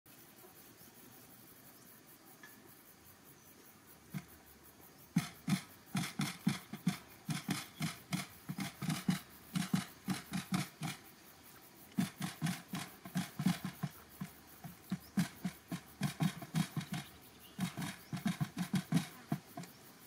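Quail pecking at bait on a cardboard trap platform: rapid short taps in bursts of about four or five a second, starting about five seconds in.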